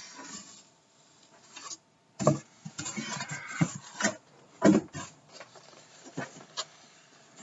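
A toy wrestling ring and its packaging being handled during unboxing: rustling with several sharp knocks of hard parts.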